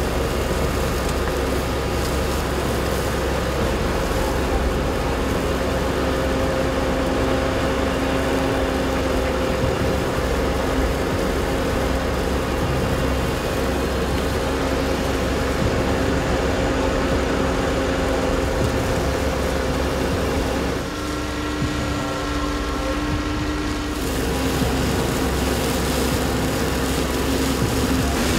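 Tractor running with its Dücker DUA boom-arm flail mower working: a steady mechanical drone with a constant whine. About three-quarters of the way through the tone shifts and the level dips for a few seconds, then the original drone returns.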